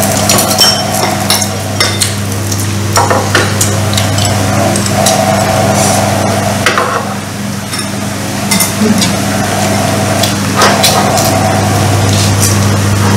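Chopsticks tapping and scraping against bowls and plates during a meal: scattered small clicks and clinks over a steady low hum.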